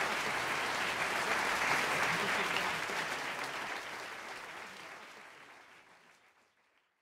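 Concert audience applauding, fading out over the second half until it is gone.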